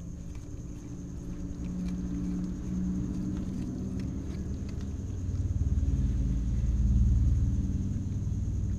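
A low rumble that swells louder in the second half, with faint clicks of cats chewing fish close by.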